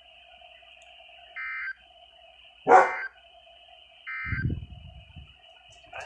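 NOAA Weather Radio SAME data tones from a Cobra CXY900 handheld radio's speaker: three short buzzing bursts about one and a half seconds apart, the end-of-message code that closes the weekly test. A dog barks once, loudly, over the middle burst, and a short low rumble follows the last one.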